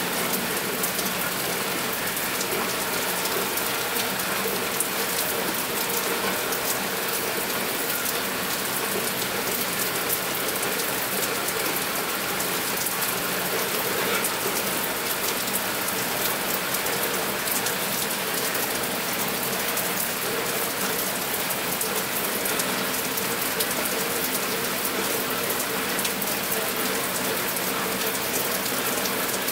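Steady rain falling, an even hiss with many small drop ticks striking hard surfaces.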